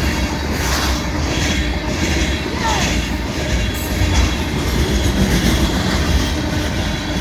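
Freight cars of a train rolling past close by at speed, about 67 miles an hour: a steady, heavy rumble of wheels on rail.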